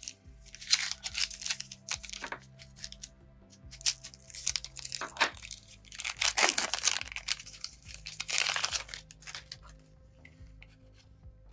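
A foil booster-pack wrapper being torn open and crinkled in four or five bursts of rustling, over faint steady background music.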